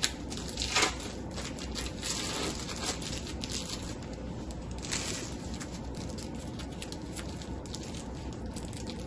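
Thin plastic wrappers crinkling as individually wrapped cheese slices are peeled open with plastic-gloved hands: a run of soft, irregular crackles.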